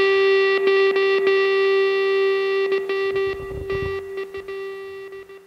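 Rock music soundtrack: a distorted electric guitar note held and ringing, fading away toward the end.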